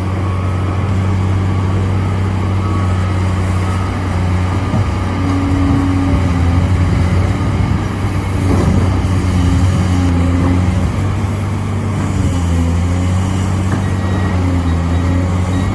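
Cat 385C hydraulic excavator's diesel engine running steadily at working revs, a deep drone. Short higher tones come and go over it from about five seconds in.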